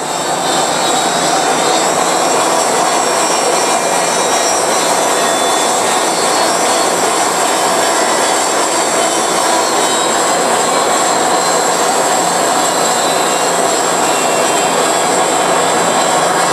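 Industrial bandsaw blade cutting through a thick forged aluminum part as a powered table slowly feeds the workpiece: a steady, loud cutting noise with a thin, steady high whine over it.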